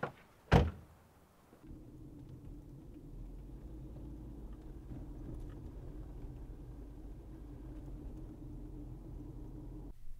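A minivan door shuts with one loud thud about half a second in. From about a second and a half in, the steady low hum of the minivan driving, heard from inside the cabin, which cuts off abruptly near the end.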